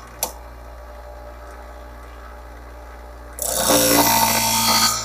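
Twice As Sharp scissor sharpener's motor running with a low steady hum; a sharp click just after the start, then about three and a half seconds in a pinking shear blade is drawn across the spinning grinding wheel: a loud grinding rasp with a ringing tone in it, lasting about a second and a half.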